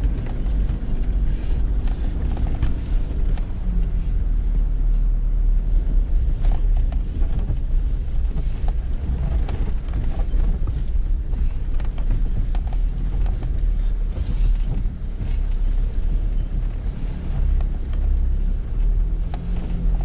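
Off-road 4x4 driving along a dirt track: a steady low engine and tyre rumble with wind buffeting the microphone and a few light knocks from the rough surface.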